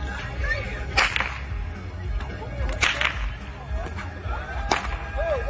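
Whip cracking: four sharp cracks, one about a second in, a quick pair near the middle and one near the end.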